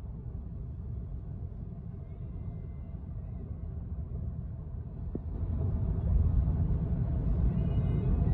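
Cabin noise of an Audi Q2 35 TFSI (1.5 TFSI, 7-speed S tronic) cruising at highway speed in seventh gear at about 2,000 rpm: a steady low rumble of tyres, wind and engine, getting louder about two-thirds of the way in.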